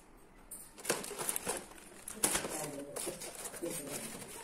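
Cardboard box and paper being handled, with rustling and a few sharp taps and knocks about one, two and three seconds in.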